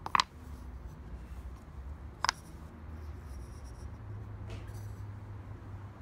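Two sharp wooden knocks, about two seconds apart, as small pine pieces are set down on a pine board, over a low steady hum.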